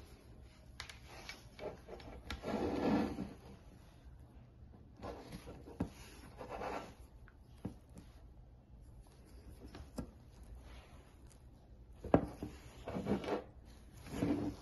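Gloved hands handling a small plastic water pump and its cable on a tabletop: irregular rubbing and sliding noises in a few bursts, with scattered light clicks and taps.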